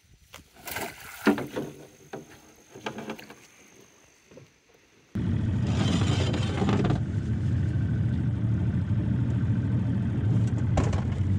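A few knocks and rattles of a hoop net being handled on an aluminium boat, then, from about five seconds in, a Tohatsu outboard motor running steadily and loud, the boat under way.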